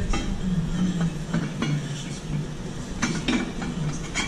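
Metal clinking and knocking as a steel spud piece is handled and seated into the bore of a steel valve pipe casting: a few irregular sharp knocks.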